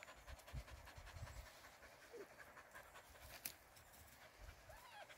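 Faint panting of Springador puppies, with soft low thuds.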